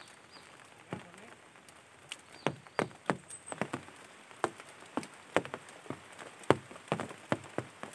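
Scattered, irregular sharp taps, about two a second, over a faint steady hiss.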